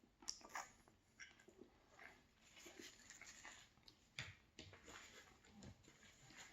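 Quiet chewing of a soft cupcake, with scattered small mouth clicks and smacks and a couple of soft low thumps.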